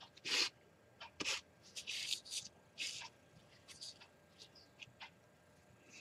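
Faint, short rustling and rubbing noises as hands shift the decal work sheet and set a fine paint brush to it, a cluster in the first three seconds, then a few fainter ticks.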